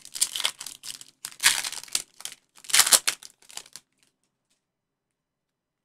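A foil trading-card pack of 2021 Panini Chronicles Football being torn open by hand, its wrapper crinkling and ripping in a quick string of rustles that stop about four seconds in.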